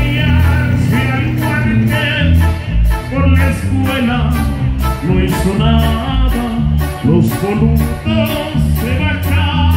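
Live regional Mexican band music: trumpet and trombones carry a melody with vibrato over keyboard, a bass line stepping between low notes, and a steady cymbal beat of about three hits a second.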